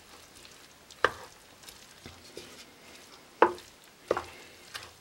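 A spoon stirring chopped spring onion and dill into rice in a pan, knocking against the pan four times, the first and second knocks the loudest.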